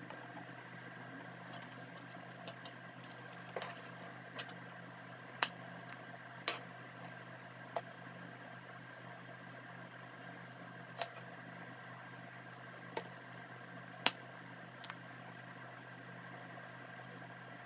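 Scattered small sharp clicks and taps of tools and tablet parts being handled on a workbench, the loudest about five and fourteen seconds in, over a steady low electrical hum.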